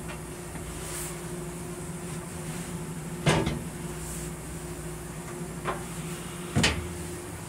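Plastic toilet lid in a commuter rail car's restroom being handled and lifted, giving two loud knocks about three seconds apart with a lighter knock between them. A steady hum from the rail car runs underneath.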